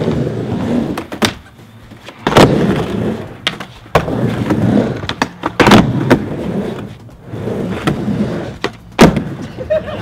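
Skateboard riding a wooden miniramp: the wheels rumble in stretches as it rolls up and down the transitions, broken by about half a dozen sharp clacks of the board and trucks hitting the ramp and coping.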